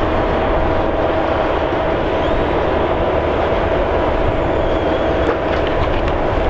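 Diesel engine and hydraulics of a tracked log-processing machine running steadily under load as its boom swings and handles logs, with a constant whine over the engine.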